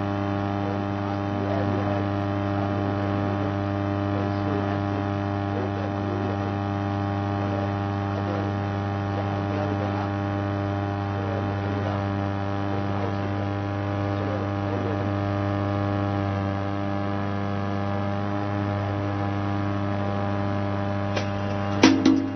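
Steady electrical mains hum, a buzz with many overtones, holding unchanged throughout. A few sharp clicks come near the end.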